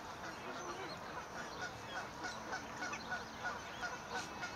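Day-old swan cygnets peeping: a rapid run of short, high calls, about four a second.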